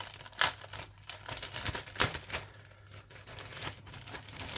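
Plastic bag crinkling and rustling in irregular crackles as a model kit's plastic parts sprue is pulled out of it.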